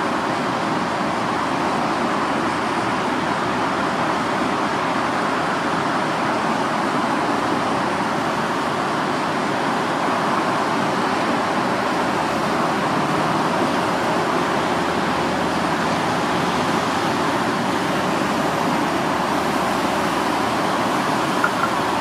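Steady, even rushing noise of fast, typhoon-swollen river water mixed with city traffic. No distinct engine note stands out.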